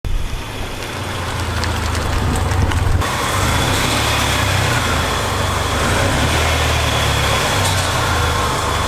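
A car engine running steadily, with a deep low hum under a broad road-like noise; the sound jumps to a second take about three seconds in and cuts off abruptly at the end.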